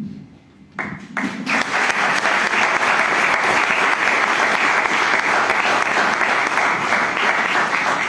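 An audience breaks into applause about a second in: a few first claps swell into steady clapping from many hands.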